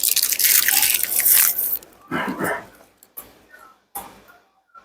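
Salsa being poured onto a breakfast burrito: a wet, spattering hiss for nearly two seconds, followed by a few shorter, softer sounds.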